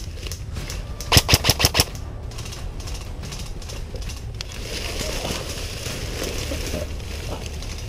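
Airsoft electric M4-style rifle firing one quick full-auto burst of about seven shots, a little over a second in. Rustling through dry leaf litter follows as the shooter moves.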